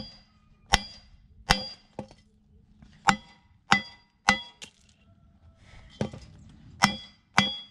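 Hammer blows on steel, about ten irregular strikes, each one ringing briefly at the same pitch.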